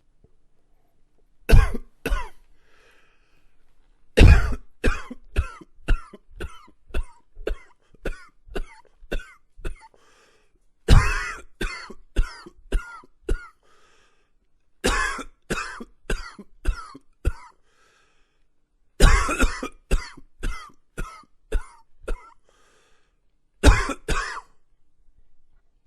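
A man coughing in repeated fits. Each fit opens with a loud cough and trails off in a quick string of weaker coughs, about two a second, with short pauses between fits and a last pair of coughs near the end.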